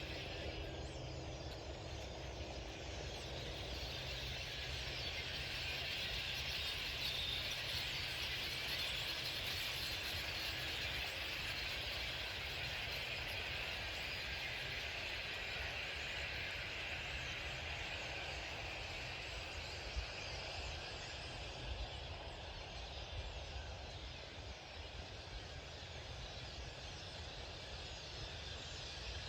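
A flock of birds calling all at once, many overlapping chirps running together into a dense chatter that swells a few seconds in, over a low background rumble.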